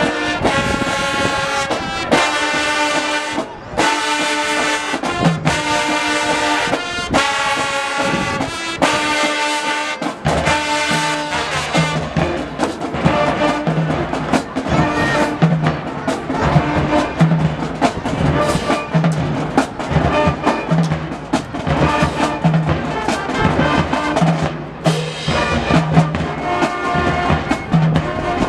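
High school marching band playing, brass and drums. For about the first ten seconds the horns play held chords in short blasts, then a steady drum beat comes in under the brass.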